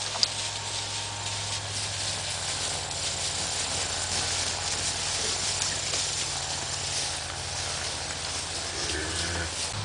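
Steady outdoor hiss, with a herd of black cattle milling close by in the grass. A sharp click comes just after the start.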